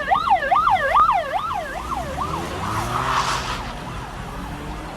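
Siren in a fast yelp, its pitch rising and falling about three times a second, loud at first and fading away after about two seconds. A brief rush of hiss follows about three seconds in.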